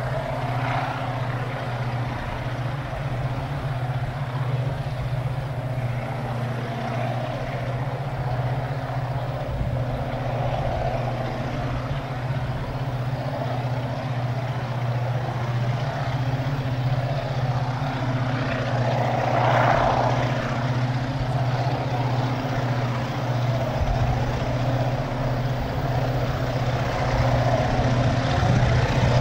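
Diesel locomotive engine of an approaching freight train working hard, a steady low drone that grows slightly louder near the end, with a brief swell of noise about two-thirds of the way through.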